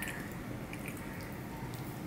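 Fingers mixing rice with curry on a steel plate: soft wet squishing with a few small clicks.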